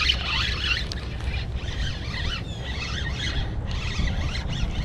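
Spinning reel being cranked to bring in a small hooked fish, under a steady low rumble of wind on the microphone. Scattered high squeaks and chirps run throughout.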